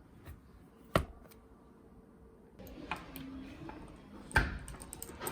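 A few sharp taps or clicks, the loudest about a second in and another a little past four seconds, over faint room noise that rises partway through.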